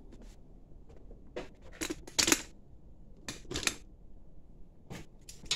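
Handling noise: a few short, separate knocks and rustles, the loudest about two seconds in, as a hand-held camera is moved about.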